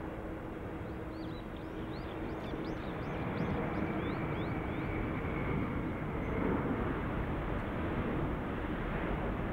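Boeing 777-300ER's GE90 jet engines during landing rollout: a rushing jet roar that swells and stays louder from about three seconds in as the nose gear comes down and reverse thrust builds, with a faint steady whine over it.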